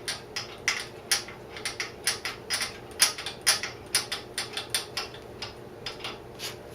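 A run of light, sharp clicks and taps at an uneven pace of about three a second, from hand tools and small metal parts being worked at a motorcycle's battery terminals.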